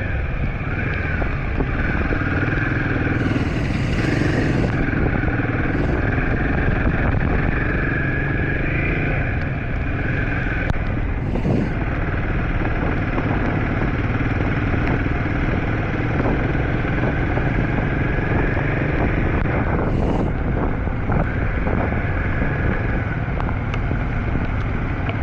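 Royal Enfield 452 single-cylinder motorcycle engine running steadily under way, mixed with a heavy rush of riding wind on the helmet microphone; a few brief hissy swells come and go.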